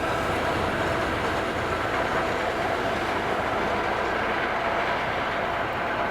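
A train rolling past on the track: a steady rolling rumble of wheels on rails, with a faint steady whine held above it.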